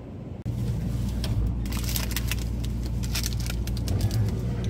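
Wrapped ice cream bars being picked through in a convenience-store freezer: quick plastic crinkling and clicks over a steady low hum, starting a couple of seconds in.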